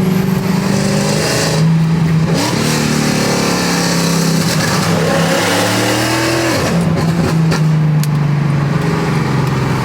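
Mercedes-AMG C63 (W204) 6.2-litre V8 pulling under hard throttle on an exhaust that runs from the headers straight into the stock mufflers. The revs climb for several seconds, drop sharply about six and a half seconds in, and settle back to a steady drone.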